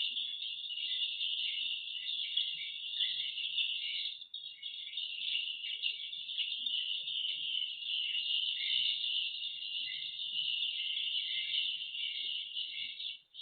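Swiftlets chirping in a dense, continuous high-pitched chatter, with a brief break a little after four seconds.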